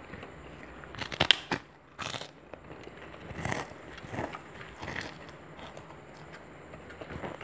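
A person eating: crunchy bites and chewing, with the loudest cluster of crackling bites about a second in and a few softer crunches after.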